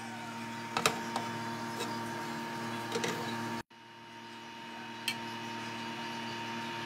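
A spoon scooping and turning rice in a stone-coated frying pan, giving a few scattered sharp clicks and taps against the pan over a steady low machine hum. The hum cuts out for an instant about halfway, then carries on.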